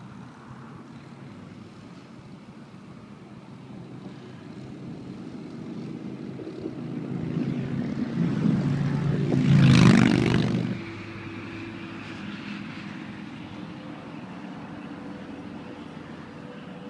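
A motor vehicle approaching and passing close by: its engine hum builds over several seconds, peaks with a brief rush of noise about ten seconds in, then drops off sharply.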